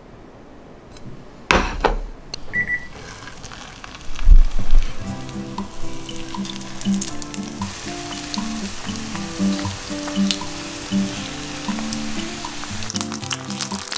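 Spring rolls sizzling as they are laid into hot oil in a frying pan, the frying hiss growing stronger over the second half. About a second and a half in there is a sharp knock, then a short beep, and a loud low thump at about four seconds; background music with a steady beat comes in about five seconds in.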